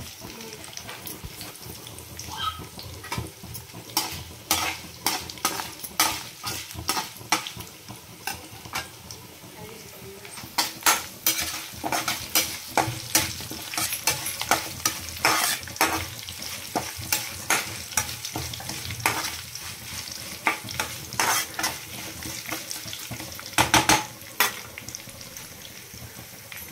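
Whole spices, garlic and dried red chillies frying in oil in a kadai for a tempering: a steady sizzle. Frequent sharp clicks and scrapes come from a steel spatula stirring against the pan, growing busier about ten seconds in.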